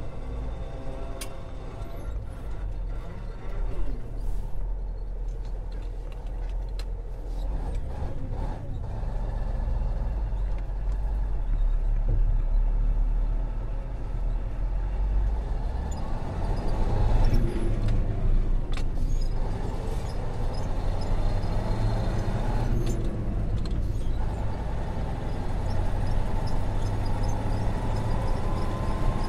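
Truck engine and road noise heard from inside the cab while driving: a steady low rumble whose engine note slides up and down, rising near the end.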